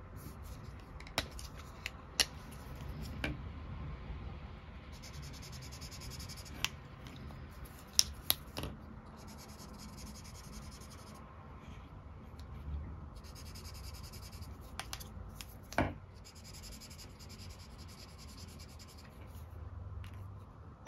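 Brush-tip art markers rubbing back and forth on paper in several bouts of quick short strokes, laying one colour over another to blend them, with a few sharp clicks and taps as the markers are handled.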